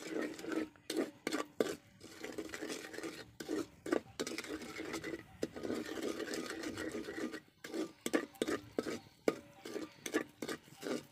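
A long-handled spoon is stirring and scraping melted sugar syrup around a large metal pan. It makes repeated quick scraping strokes, with a longer continuous scrape near the middle.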